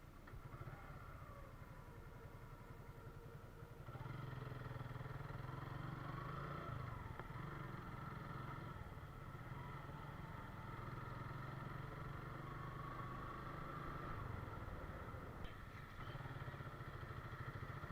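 Suzuki Gixxer motorcycle engine running steadily while riding; it gets louder about four seconds in.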